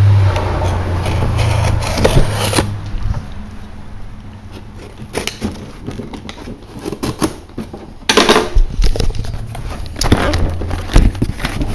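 Cardboard shipping box being cut and opened by hand: scattered scrapes, clicks and rustles of packing tape and cardboard, denser near the end, with a low hum in the first couple of seconds and again near the end.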